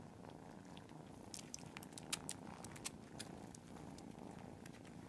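Several cats purring at once, a steady low rumble, with scattered faint clicks over it.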